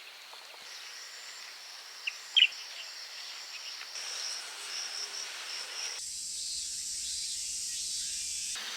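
Outdoor ambience of insects chirping steadily in a high, continuous band, with a couple of short bird chirps about two seconds in. The background changes abruptly twice, about four and six seconds in.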